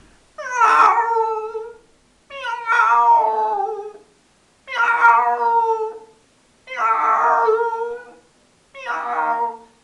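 A man imitating a female cat in heat with his voice: five drawn-out yowls, each about a second and a half long, with short pauses between them.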